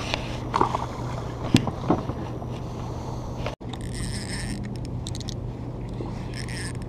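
A spinning fishing reel being handled, giving short whirs and light clicks in the second half, over a steady low hum. A sharp knock comes about a second and a half in.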